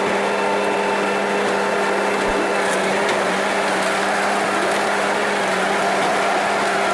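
A machine running steadily: a constant hum under a dense, even whirring noise, with no change in speed.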